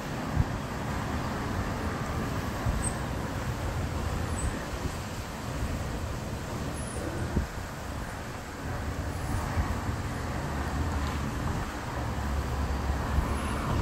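Wind gusting over the microphone as a storm front approaches, with a steady hum of city traffic beneath it. There is a short knock about half a second in and a smaller one past the middle.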